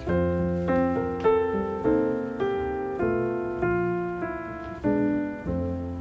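Background piano music: a slow, gentle melody over chords, each note struck and left to fade, a new one about every half second.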